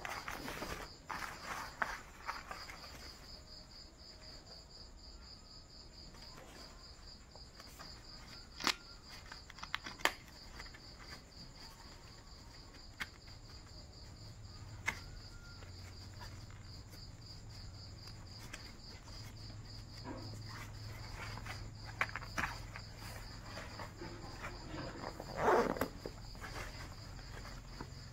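Crickets chirping steadily in a high, fast pulsing trill, under scattered cloth rustles and small clicks of trouser fabric and waistband fasteners being handled; a low hum comes in about halfway.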